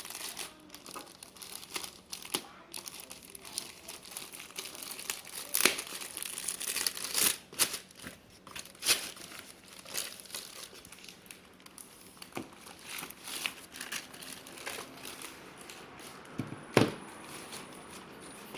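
Laptop packaging being opened and handled: irregular crinkling and crackling with sharp clicks, the loudest a snap near the end.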